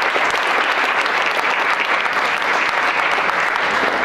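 Audience applauding steadily: dense clapping of many hands in a large room.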